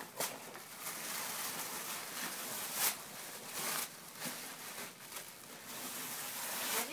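Rustling and scraping of a red fabric gift bag and the packaged toy inside it as a toddler pulls at it, with a few louder rustles a few seconds in.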